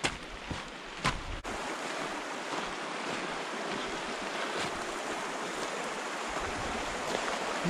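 A few footsteps on stony ground in the first second or so, then steady rushing of a shallow, muddy flash-flood stream running down a normally dry river bed after a heavy shower.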